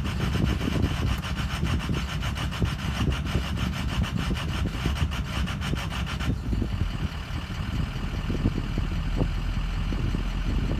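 Ford 6.0 Power Stroke turbodiesel V8 idling roughly, with a fast, even rasping pulse, then about two-thirds of the way through it smooths out and settles to a normal, steady idle. The rough idle comes and goes intermittently.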